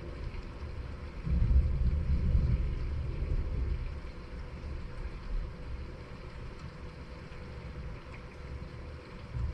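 Distant thunder rumbling: a low rumble swells about a second in and dies away over the next few seconds.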